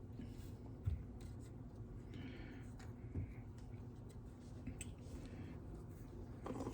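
Steady low hum from a just-switched-on hot air rework station, under faint taps and clicks of small tools and parts being handled, with a soft thump about a second in.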